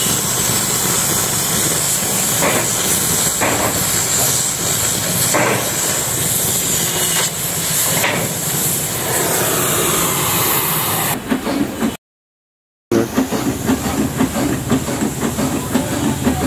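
Oxy-fuel gas cutting torch hissing steadily as it cuts through thick steel plate. After a brief break near the end, a power hacksaw's rhythmic clatter follows.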